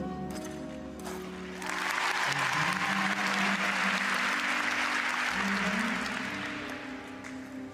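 Audience applause that swells about two seconds in and dies away near the end, over the skater's instrumental program music.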